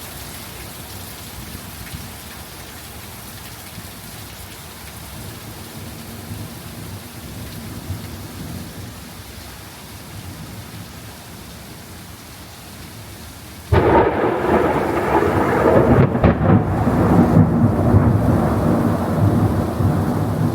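Steady rain falling in a thunderstorm. About fourteen seconds in, a sudden loud thunderclap breaks in and keeps rumbling.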